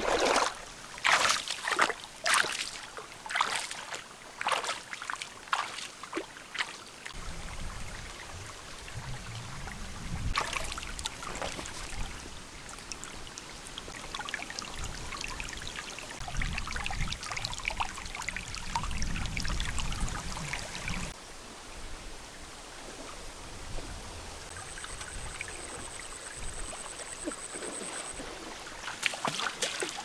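Shallow stream trickling over rocks, with a run of splashes in the first few seconds and more splashing near the end as someone wades barefoot through the water. A thin, high steady tone sounds for a few seconds late on.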